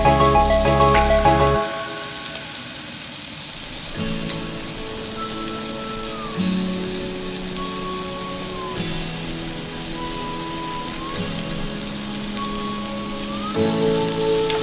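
Chopped onion, garlic and carrot sizzling in hot oil in a wok, a steady hiss. Background music plays over it and drops in level about a second and a half in.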